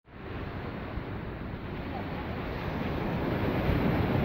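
Small surf washing onto a sandy beach, with wind buffeting the microphone; a steady rushing noise that grows a little louder near the end.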